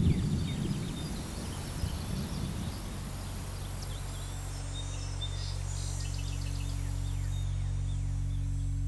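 Outdoor ambience of birds chirping and a high insect buzz. A low, steady drone comes in about three seconds in as the music before it fades.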